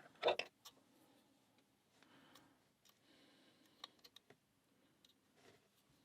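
Lock pick and tension tool working in the keyway of an Abus 65/20 padlock during a speed-pick attempt. A few sharp clicks come in the first half-second, then faint scraping and scattered light ticks of the pick in the pins.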